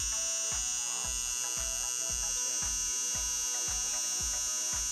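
Vintage T9 cordless hair trimmer switched on, its motor and blade running with a steady high-pitched buzz. Background music with a steady beat plays underneath.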